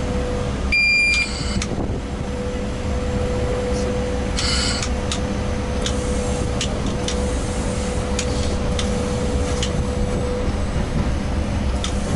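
Steady running noise inside a ChS200 electric locomotive's cab, a low rumble with a constant hum. A short electronic beep sounds from the cab equipment about a second in, and a few light clicks follow later.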